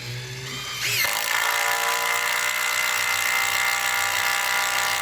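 Cordless Makita impact driver hammering as it drives a screw, running on its speed setting 3. It is a loud, steady buzzing rattle that builds up about a second in and carries on without letting up.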